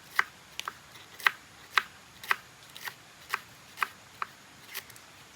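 A knife slicing winged beans thinly, about two sharp cuts a second at an even pace.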